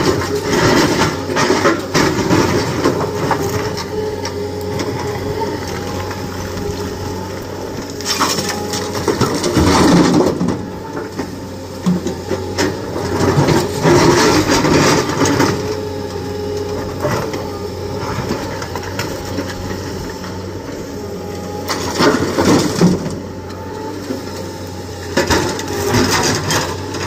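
Hydraulic rock breaker on a Tata Hitachi Zaxis 220LC excavator hammering quarry rock in several loud bursts, with rock cracking and crunching, over the steady running of excavator diesel engines.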